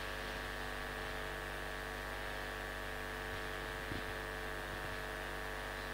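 Steady electrical mains hum, a flat stack of even tones, with a faint tap about four seconds in.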